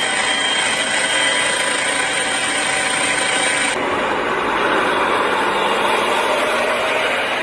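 Steady engine noise with a faint high whine, then, from about four seconds in, red fire-service 4x4s and trucks driving past one after another with their engines running.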